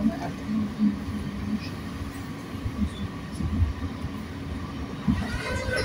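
Regional passenger train in motion, heard from inside the carriage: an uneven low rumble of wheels on track with occasional bumps.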